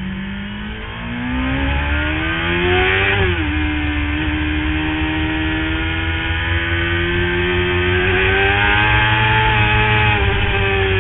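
Sports motorcycle engine at full throttle, heard from the bike itself. The revs climb for about three seconds, drop sharply at an upshift, then climb slowly again and ease off slightly near the end, over a steady low rumble.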